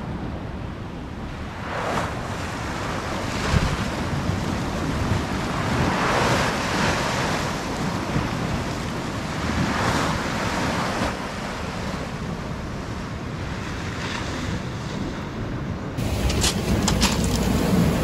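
Sea surf washing in, surging every few seconds, with wind on the microphone. About two seconds before the end the sound cuts abruptly to a steadier, louder rumbling noise.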